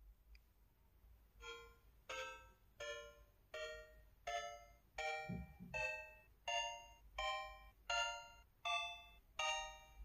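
SKY Mirach smartphone's 'Electric Sound' keypad dial tones: twelve short electronic beeps about three-quarters of a second apart, each on a different pitch, one for each key tapped from 1 through 9, *, 0 and #.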